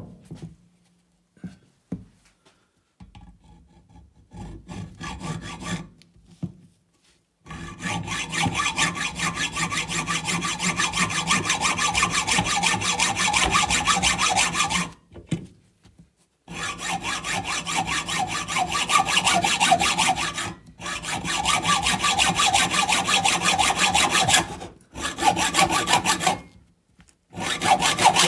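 Hacksaw cutting through a brass 9mm cartridge case clamped in a metal vise, in quick, steady back-and-forth strokes. It begins with a few quiet seconds of light clicks and scraping as the blade is set in place, then saws continuously, with a pause of about a second and a half near the middle and a few brief breaks later.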